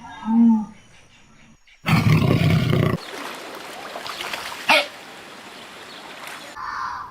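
Farm-animal calls in short clips cut one after another: a brief low call near the start, a loud rough call about two seconds in lasting about a second, then a noisier stretch with a sharp short cry near the five-second mark.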